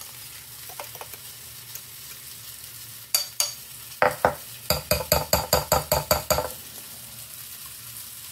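Metal fork clinking against a ceramic bowl of pancake batter: two sharp knocks about three seconds in, then a quick regular run of about a dozen clinks, some five a second, for two and a half seconds. Sausage patties sizzle in a frying pan underneath throughout.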